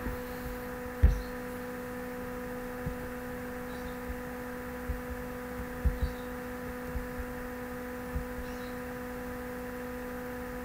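Steady electrical hum in the recording, with a few soft low thumps scattered through it, the strongest about a second in.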